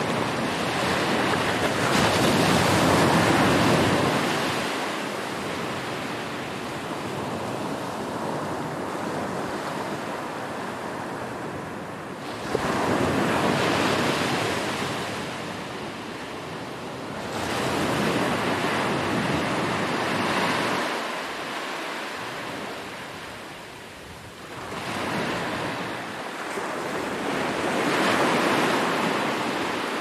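Ocean surf breaking and washing up a sandy beach, rising and falling in slow surges, about five of them, one starting sharply about twelve seconds in.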